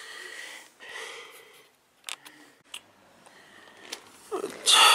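Handling noise from a handheld camera being moved: soft rustling, a few light clicks, then a louder rustle near the end.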